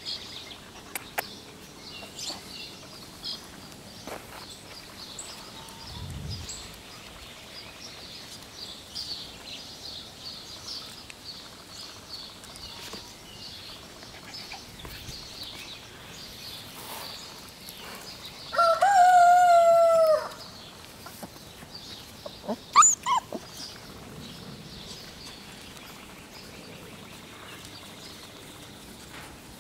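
Small birds chirping. About two-thirds of the way through, one loud held animal call lasting about a second and a half, and a few seconds later a few short, sharp calls.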